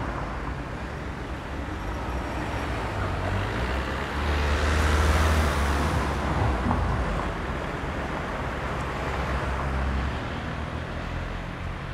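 Road traffic: cars driving past with a steady low rumble, one vehicle passing louder about four to six seconds in.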